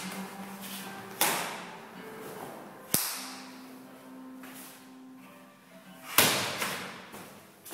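Three sharp cracks from a kung fu practitioner's strikes and footwork during a Seven Star Praying Mantis form, about a second, three seconds and six seconds in, the last the loudest. Faint music plays underneath.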